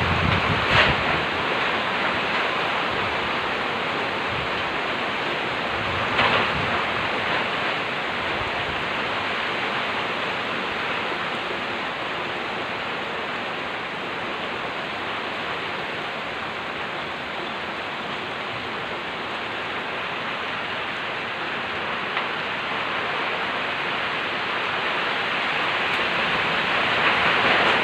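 Heavy rain pouring steadily in a strong wind, a dense unbroken hiss. Two brief louder bursts come about a second in and about six seconds in, and the downpour swells near the end.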